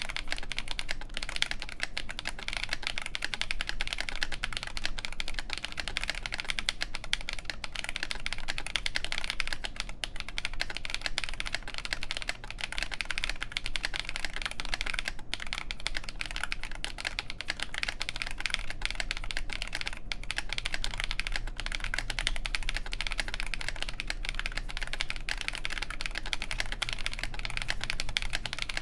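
Fast, continuous typing on a Nooir Noland N1 mechanical keyboard with OneKey Momo Oolong linear switches (58 g springs, factory lubed), an FR4 plate and MTNU Graphite keycaps: a steady stream of quick key clacks.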